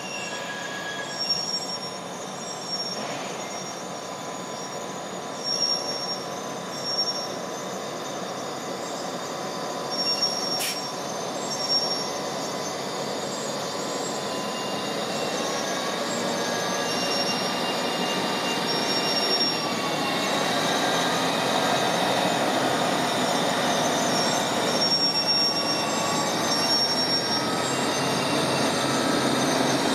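A Rhaetian Railway diesel locomotive runs slowly past with its work train of flat wagons, its engine rumbling and its steel wheels squealing on the rails in thin, high tones that come and go. The sound grows louder as the locomotive draws alongside. There are a few short knocks in the first twelve seconds.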